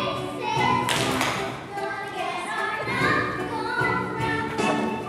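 Stage-musical accompaniment with a group of young girls singing, broken by a few sharp taps and thumps from the performers on stage.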